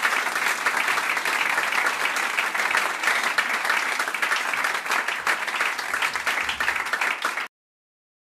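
Audience applause with many hands clapping at once, cutting off suddenly near the end.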